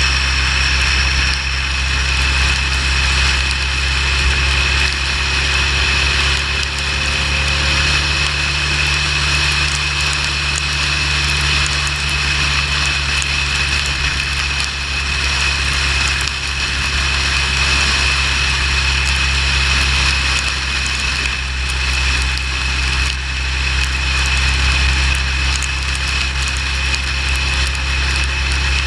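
Motorcycle running steadily at highway speed: a constant low engine drone under a steady rush of wind and road noise.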